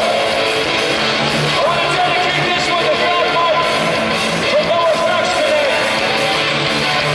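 Loud live punk rock: a band playing guitars, bass and drums with a singer's voice over the top.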